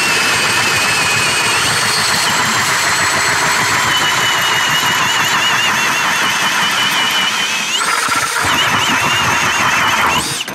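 Cordless Milwaukee 18-volt brushless hammer drills spinning ice augers through thick ice: a steady, loud motor whine over the grinding of the cutting blades. One drill, on the Eskimo Pistol Bit, finishes its hole about a second and a half in; the other, on the K-Drill auger, keeps boring until it cuts off near the end.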